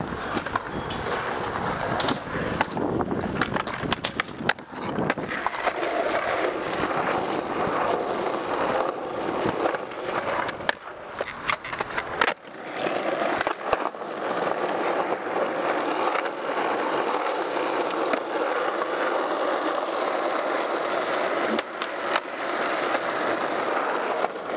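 Skateboard wheels rolling over concrete and asphalt, with sharp clacks now and then as the board is popped and lands.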